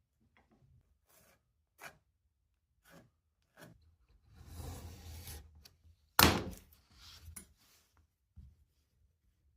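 Workshop handling sounds: scattered light knocks and taps, a scraping, rubbing stretch of about a second and a half near the middle, then one sharp loud knock about six seconds in, followed by a few lighter knocks.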